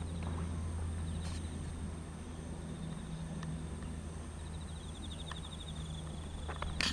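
Outdoor ambience: insects chirping in short, evenly pulsed trills over a steady low hum, with a few faint clicks.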